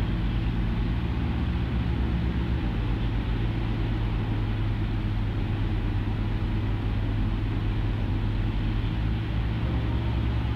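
Cessna 152's Lycoming O-235 four-cylinder engine throttled back on final approach, heard inside the cabin as a steady low drone mixed with propeller and airflow noise.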